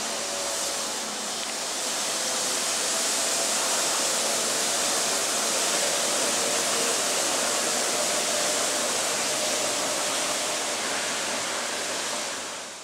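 Osaka Monorail train passing overhead on its concrete guideway, a steady rushing hiss from its rubber tyres on the rain-wet beam with a faint motor whine early on.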